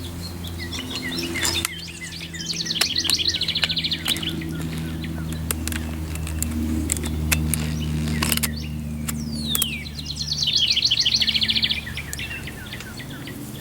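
A songbird singing twice, each song a falling whistle followed by a fast trill. Underneath runs a steady low hum, with a few sharp clicks and knocks of handling.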